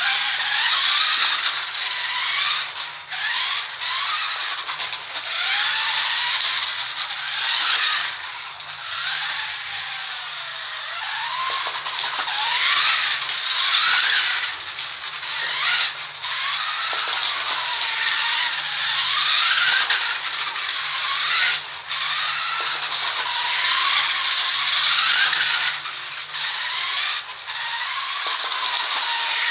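Tamiya electric RC car driving, its motor and gears whining in a pitch that rises and falls again and again with the throttle, over a steady hiss of tyres and drivetrain.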